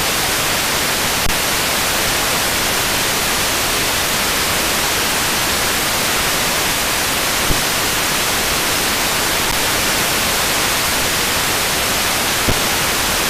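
Steady FM radio hiss from an Airspy software-defined radio receiver demodulating an empty frequency with no station, broken by about three faint clicks.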